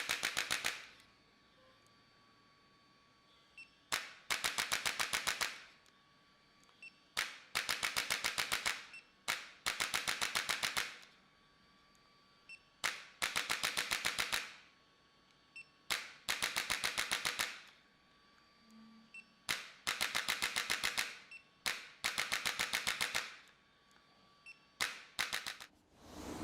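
Rapid mechanical clicking in about nine separate bursts of a second or two each, roughly ten clicks a second, with short quiet gaps between the bursts.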